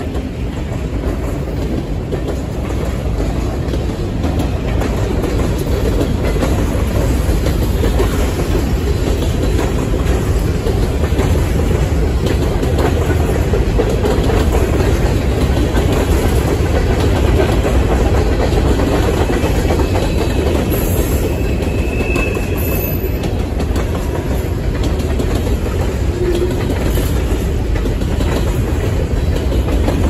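Freight cars (covered hoppers, boxcars and centerbeam flatcars) rolling past on the rails: a steady rumble of steel wheels with clickety-clack over the rail joints.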